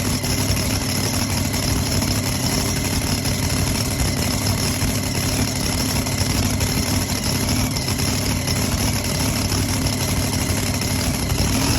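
Supercharged pulling truck's engine running at a steady idle.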